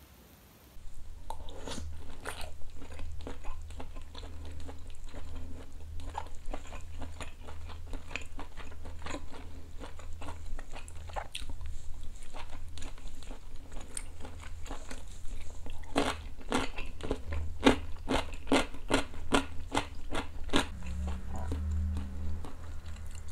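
Close-up chewing and biting sounds of a person eating boiled beef shank and noodles from a bowl of seolleongtang, a steady irregular stream of short clicks. It starts about a second in.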